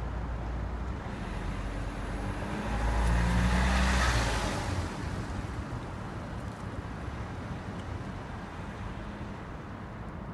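A motor vehicle passing by: its engine hum and road noise swell to a peak about four seconds in, then fade back into a steady low traffic rumble.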